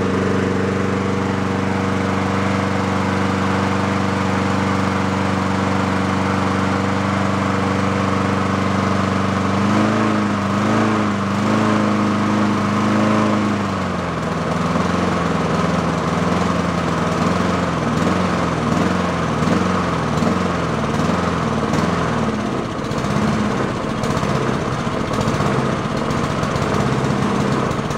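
Honda HRS216 mower's single-cylinder engine running, steady at first. About ten seconds in its speed lifts and wobbles, and from about fourteen seconds on it hunts, rising and falling over and over. The owner suspects a clogged idle circuit in the carburetor as the cause of this surging.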